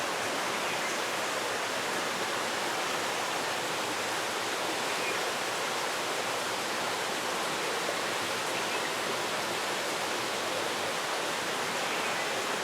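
Steady, even hiss of running water, with no breaks or changes.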